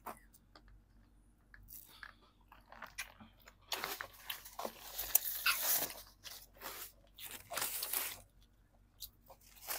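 Crunchy food being bitten and chewed close to a clip-on microphone. The crunching comes in dense crackly clusters from about four seconds in, with another short run near the end, after soft clicks at first.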